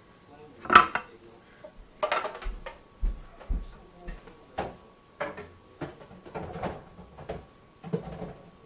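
Scattered knocks and clatters of kitchen cupboards and utensils being handled, with faint speech in the background and a faint steady high tone underneath.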